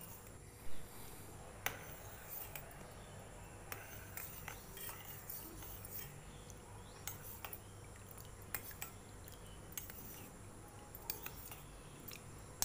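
A metal spoon stirring water in a stainless steel bowl, clinking and scraping against the bowl in irregular taps. The loudest knock comes just under a second in.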